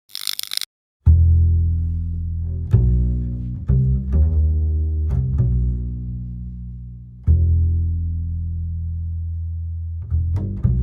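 Background music of low bowed strings, double basses and cellos: long, deep notes struck one after another, then quickening into rapid notes near the end. A short burst of hiss comes just before the music begins.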